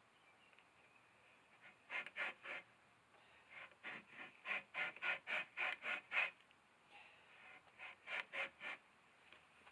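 Damp beaver hide being worked back and forth over the edge of a wooden 2x2 board: short scraping strokes in three runs, about four a second, with the longest run in the middle. The rubbing breaks up the hide's fibres to soften it as it dries.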